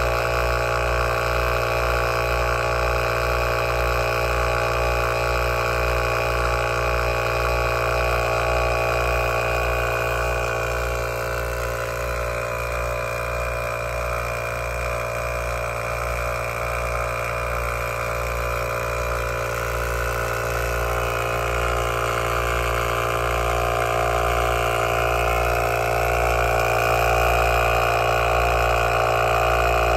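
12V piston air compressor (Heyner Big Air 40L Pro) running steadily under load as it inflates a flat van tyre, with the van's engine idling underneath it. The motor's hum has an even low pulse.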